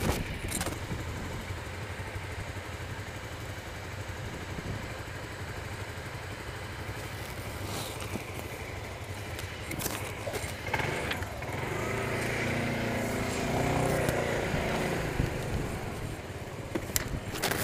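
Suzuki Burgman scooter engine idling, then pulling away about eleven seconds in, its pitch rising as it speeds up, picked up by a microphone inside the rider's helmet. A few sharp clicks and knocks come earlier.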